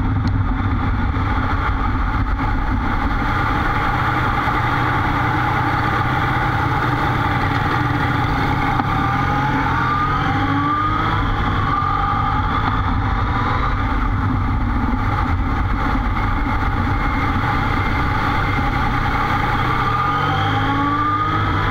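Motorcycle engine running under way, heard from the rider's seat, with a steady road and engine drone. Its pitch climbs in short rising sweeps about halfway through and again near the end as the bike pulls away and accelerates.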